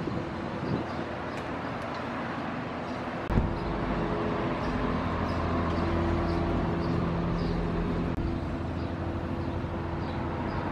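Steady motor-vehicle engine hum with traffic noise. The hum grows louder after a click about three seconds in.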